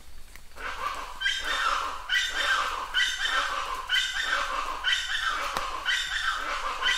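An animal call repeating about once a second, each call falling in pitch, over the faint hiss of rain.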